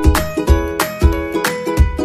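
Background music with a steady beat and plucked-string chords.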